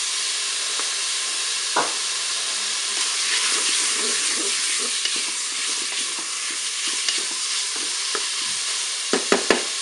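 Pork pieces sizzling as they brown in hot olive oil in a Cookeo multicooker bowl, stirred with a wooden spatula that scrapes and clicks against the bowl. Near the end there is a quick run of four sharp knocks.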